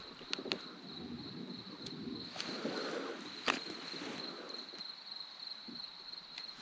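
Crickets chirping steadily in a high, even trill, with a few sharp clicks and faint rustling of handling over it, the loudest click about three and a half seconds in.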